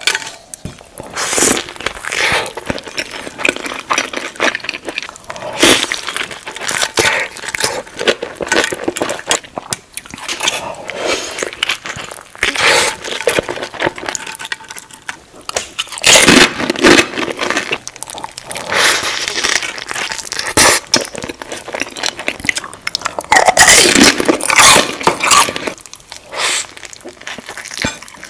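Close-miked eating of a giant burrito: big bites into the tortilla and chewing, heard as irregular crunching and crackling bursts, loudest about halfway through and again near the end.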